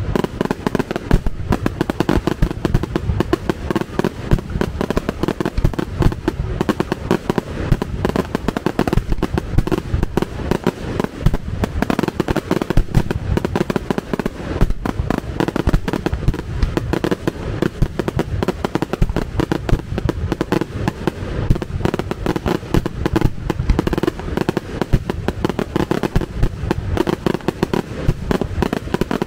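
Fireworks display: a dense, unbroken barrage of firework bangs, many every second.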